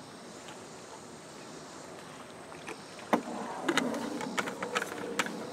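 Low, even outdoor background, then a sharp knock about three seconds in, followed by a run of small plastic clicks and rattles as the cap of a plastic water bottle is screwed back on in a canoe.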